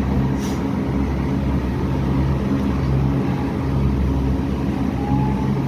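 A fleet of ride-on floor scrubbers running together, a steady machine hum with a low drone.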